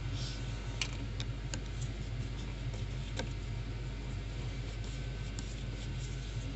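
A few light clicks and taps, hand work on engine parts and hoses, over a steady low hum.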